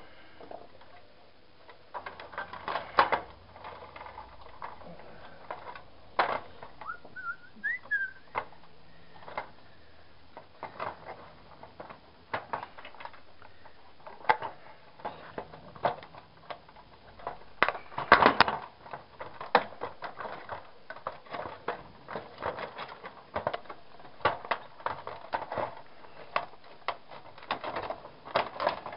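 Irregular clicks, knocks and clatters of plastic and metal parts being handled and pulled apart while a scrap TV is dismantled by hand, with the loudest knock about 18 seconds in. A short squeaky chirp sounds once around 7 seconds in.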